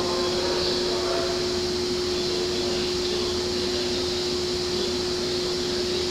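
Stationary JR East E231-series trailer car (SaHa E231-133) standing at the platform, its onboard equipment humming steadily with one constant mid-pitched tone over a hiss.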